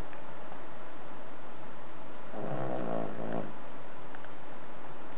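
Cavalier King Charles Spaniel snoring: one loud, pitched snore about two and a half seconds in, lasting about a second, preceded by a softer breath and by the tail of an earlier snore at the very start.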